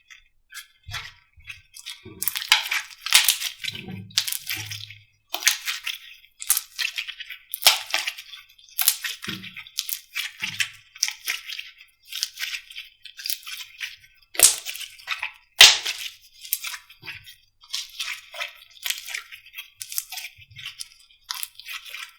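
Slime being pressed and squished by hand, giving dense crackling and popping clicks with a few soft low squelches.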